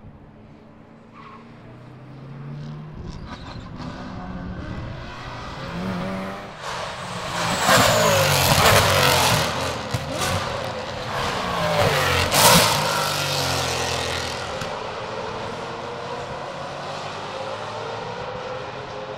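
Maserati GranTurismo MC GT4 race cars with 4.7-litre V8 engines passing at speed together with another GT race car. The engines rise in pitch and loudness to a peak about eight seconds in and again near twelve seconds, then fade into the distance.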